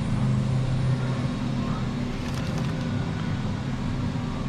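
Steady low machine hum of a grocery store's background, such as its ventilation and refrigerated cases, with a few faint clicks about halfway through.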